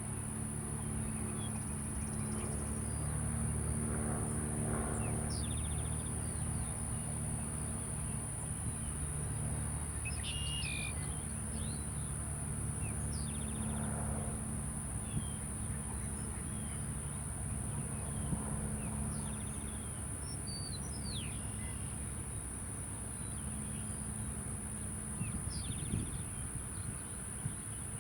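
Outdoor ambience: scattered bird chirps over a steady high insect drone, with a low steady hum underneath that fades near the end.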